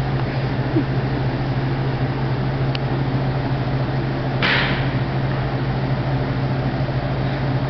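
A steady low hum, with a short hiss about four and a half seconds in.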